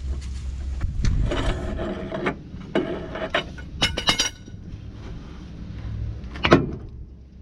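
Tools and metal parts being handled: several bouts of scraping and clattering, with a sharp knock about six and a half seconds in.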